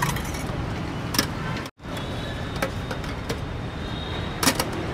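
Steady street traffic noise with a few sharp clinks of bowls and metal utensils. The sound cuts out completely for a split second about a second and a half in.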